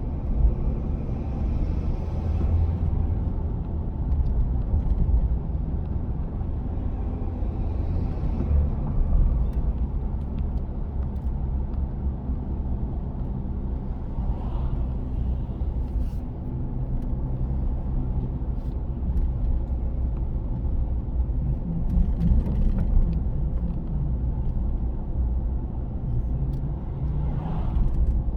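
3.0 Duramax inline-six turbodiesel, fitted with an S&B cold air intake, running as the truck drives, heard from inside the cab with a window cracked: a steady low rumble with a few brief faint rises.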